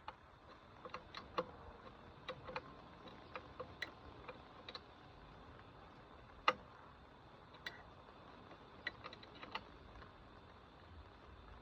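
Faint, irregular clicks and light taps of small tools and parts being handled during hands-on repair work, with one sharper click about six and a half seconds in.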